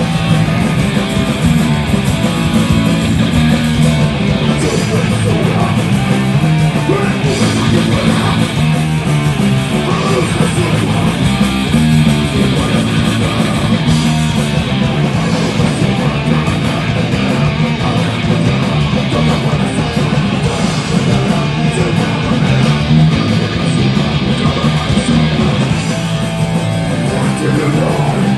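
Live punk rock band playing loud distorted electric guitar, bass and drums without a break, with a singer on the microphone.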